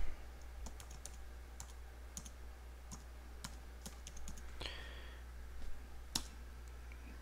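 Computer keyboard keys being typed one at a time: sparse, irregular light clicks over a steady low hum, while a password is entered.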